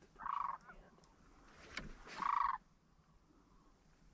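Sandhill crane calls: two short, rolling, rattling calls about two seconds apart, the second a little longer. A brief sharp click comes just before the second call.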